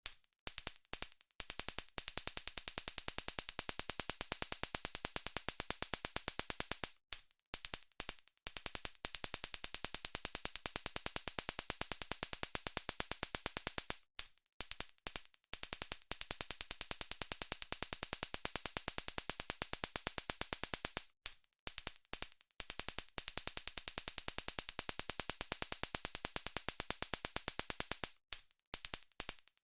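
Stun gun (taser) zapping: a rapid crackle of electric arc snaps. It comes in bursts of about five seconds, each opening with a few short stuttering zaps, repeated four times.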